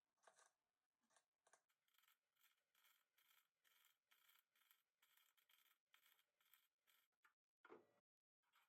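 Faint, rhythmic scraping strokes, about three a second, with a louder, lower stroke near the end.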